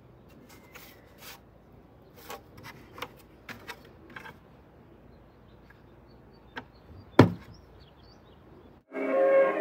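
Scattered light clicks and knocks of a plastic bucket and a drill bit being handled on a wooden table, with one louder knock about seven seconds in. Guitar music starts just before the end.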